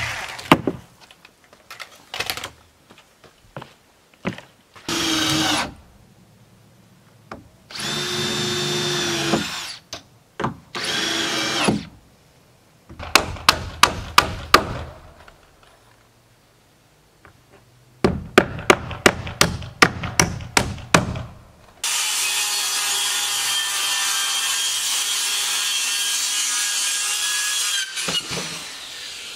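Carpentry sounds while sheathing a framed addition: a power drill runs in three short bursts; then two rapid runs of sharp nailing strikes, the second of about eight even blows. After that a power saw cuts steadily through a sheet of wood sheathing for about six seconds.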